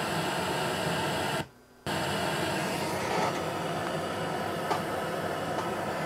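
Steady white-noise hiss from a 24-bit linear feedback shift register pseudo-random number generator, its output played through a stereo. The hiss cuts out briefly about a second and a half in.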